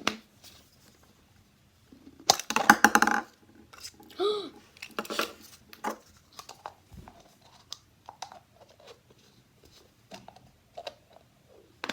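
Small plastic toy and its packaging being handled on a table: scattered clicks, taps and rustles, with a louder clattering, rattling burst a little over two seconds in.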